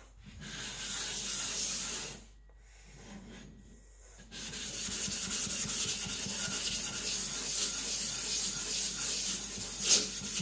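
Atoma 140-grit diamond plate rubbed back and forth over a Naniwa Professional 400-grit whetstone to flatten it: a gritty rasping, a pause of about two seconds, then steady rapid rubbing.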